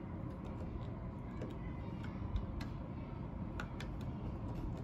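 Light, unevenly spaced clicks, about one a second, over a low steady rumble.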